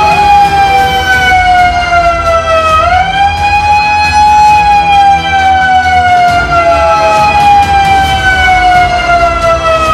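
Siren wailing, loud: its pitch slides slowly down for about three seconds and then swings quickly back up, three times over.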